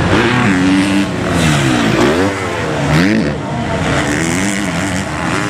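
Motocross bike engines revving on a dirt race track, their pitch climbing and dropping again and again as the throttle opens and the riders shift, with more than one bike heard at once.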